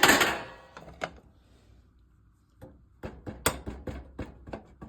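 A stove's burner control knobs being worked, giving a few clicks about a second in and then, after a pause, a quick run of sharp clicks and light knocks at about five a second.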